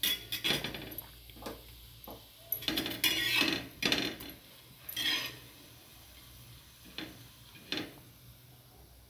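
Steel spatula scraping and clinking against a flat frying pan as it slides under and turns a fried pea patty: a run of scrapes and taps, busiest in the first half, then two single taps near the end.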